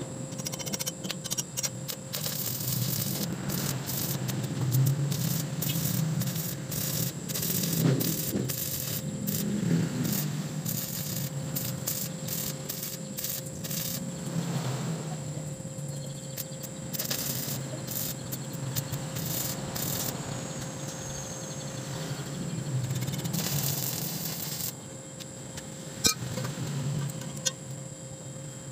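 Arc welding a steel pipe with a small inverter welder: the arc crackles and sizzles in irregular runs, stopping about 25 seconds in, followed by a single sharp click.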